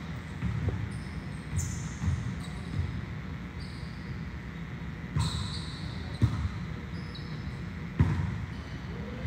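Volleyballs being hit and bouncing on a court during serve-receive drills: sharp slaps every second or two, the loudest two near the end, with short high squeaks, most likely sneakers on the floor.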